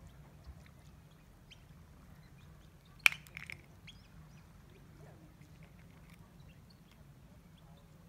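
A sharp click about three seconds in, followed by a few lighter clicks: a clam shell knocking against rock as a herring gull sets it down with its bill. Faint low background noise otherwise.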